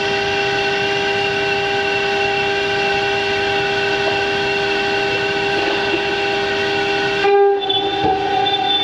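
Stone CNC router's spindle running with a steady whine of several tones over a grinding noise as it cuts 15 mm marble. About seven seconds in the sound drops out for a moment, then comes back with the whine slightly changed.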